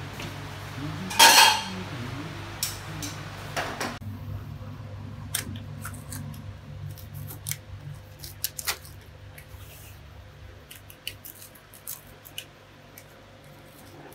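Steel wheel pizza cutter rolling through a crisp baked pizza crust, giving a run of sharp, irregular crackles and crunches as the crust breaks. A loud brief noise comes about a second in, before the cutting.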